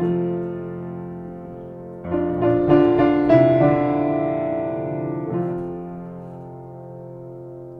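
Keyboard playing the closing chords of a song's accompaniment: a held chord fading, then a new chord struck about two seconds in, its notes added one after another, left to ring and slowly die away.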